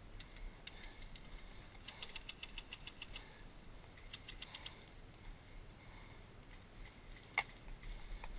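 Bursts of airsoft gunfire: a rapid run of clicks lasting about a second, a second short burst, then a single sharp shot near the end.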